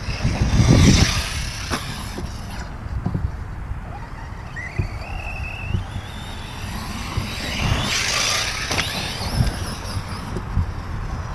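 Wind rumbling on the microphone, with louder gusts about a second in and around eight seconds in. Under it, the thin whine of a Reely Raptor 6S RC car's brushless electric motor rises in pitch as the car accelerates about halfway through.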